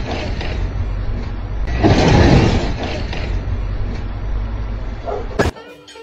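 Delivery van running on a gravel yard: a steady low engine rumble with two louder rushing surges. It breaks off with a sharp click about five and a half seconds in.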